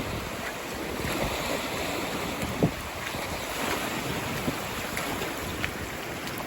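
Typhoon wind and rushing water making a steady noisy roar, with gusts buffeting the microphone and one short thump about two and a half seconds in.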